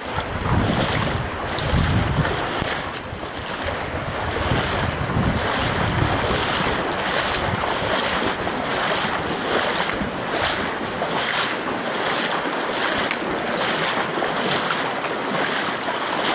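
Steady rush of the Virgin River's shallow water, with the splashing of wading steps. Wind rumbles on the microphone during the first six seconds or so.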